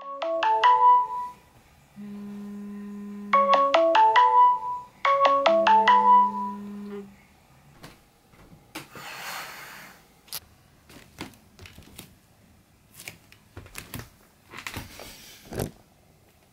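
Electronic alarm-clock tone playing a short melody: quick runs of falling notes over a low held tone, repeated three times and stopping about seven seconds in. It is followed by a stretch of rustling and a few scattered clicks and knocks.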